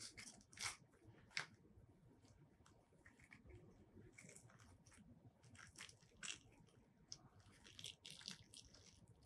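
Hands pulling apart a soft mini durian wrapped in paper tissue: quiet, scattered soft tearing of the flesh and rustling of the paper, with the two sharpest sounds just under a second and about a second and a half in.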